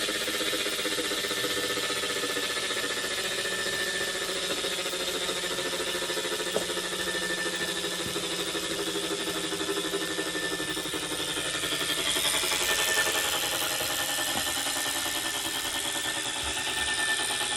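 Wahoo Kickr Core direct-drive smart bike trainer running with a steady hum and a high-pitched whine on top: the unwanted humming noise the owner is recording. It swells a little about twelve seconds in.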